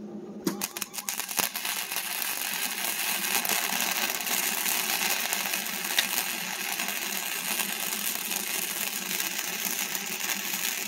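Electric arc welding on steel: a few short crackles as the arc is struck about half a second in, then the steady sizzling crackle of the arc as a bead is run.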